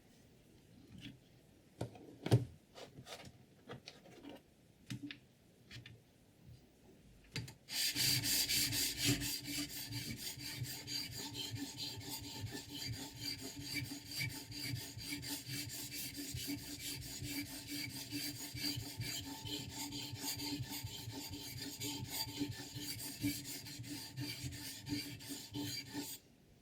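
A few light knocks of the tool being set up, then a sharpening stone stroked rapidly back and forth along a scissor blade in a guided sharpening system, giving an even, continuous rasping. The rasping stops abruptly near the end.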